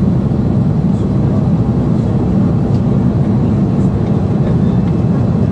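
Steady rumble of airflow and engines inside an airliner's cockpit during the climb after takeoff, with the flaps fully retracted.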